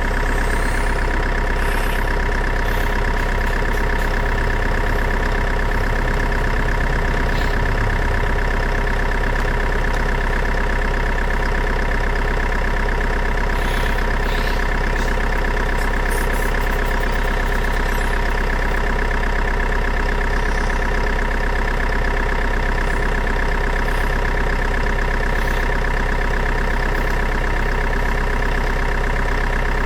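Steady, unbroken engine-like drone with a fast flutter, like a motor idling.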